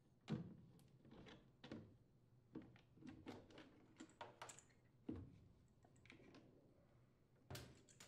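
Faint, irregular knocks and scrapes as an old furnace draft inducer motor assembly is worked loose and lifted out of the furnace cabinet.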